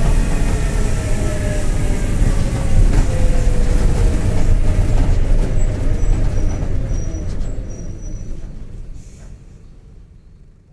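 Mercedes-Benz OF-1721 bus's four-cylinder diesel running as the bus slows, its whine falling in pitch over the first few seconds, with the growl of a worn bearing. A few faint high squeaks follow, and the sound fades away toward the end.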